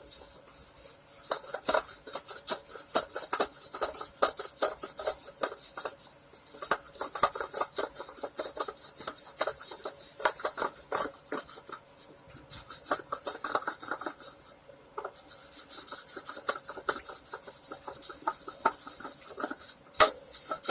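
The fine abrasive side of a fret levelling bar is drawn quickly back and forth along the metal frets of a Squier Stratocaster neck. It makes a steady run of light scraping strokes, broken by a few short pauses. This is a no-pressure check pass, done with just the bar's own weight, to rub marker ink off the fret tops and show the high and low spots.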